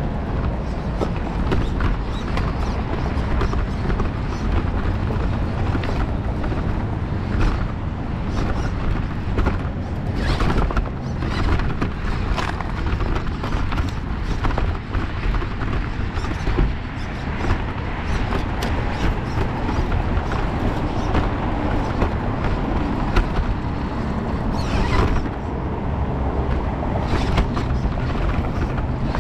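Onboard sound of a Redcat Danchee RC rock crawler climbing over large stones: a steady low rumble from the drivetrain and chassis, with frequent clicks and knocks as the tyres and body strike the rocks.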